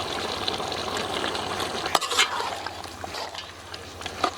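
A ladle stirring freshly added broccoli into a pot of simmering chicken gravy: a steady hiss of cooking, with a couple of sharp metal clinks about two seconds in, then quieter stirring.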